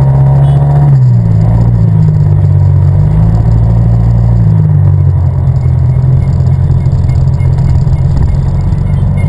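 Yamaha TMAX 500 scooter's parallel-twin engine running steadily under way, heard from on board. Its pitch eases down about a second in and shifts again a little after the middle.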